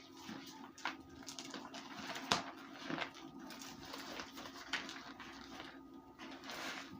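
Crunching and chewing of baked cornstarch: irregular crisp crackles several times a second, the loudest about two seconds in.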